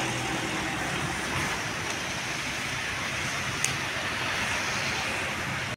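Setra coach's diesel engine idling close by: a steady low hum under a broad even hiss, with one short click about three and a half seconds in.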